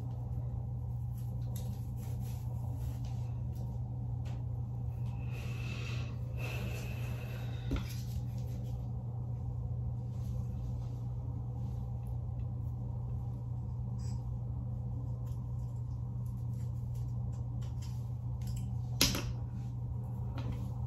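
A steady low hum, with faint rustling and small clicks of hands working hair and a crochet latch-hook tool; one sharper click comes about a second before the end.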